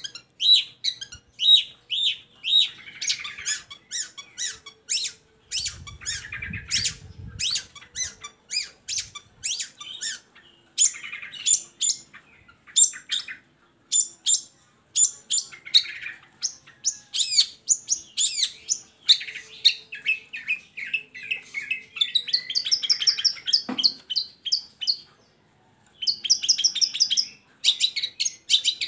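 Long-tailed shrike (cendet) singing: a rapid, varied run of sharp chirps and harsh notes, with a short pause near the end.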